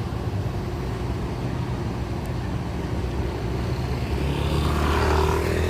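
Diesel bus engine running with a steady low hum, growing louder over the last second and a half.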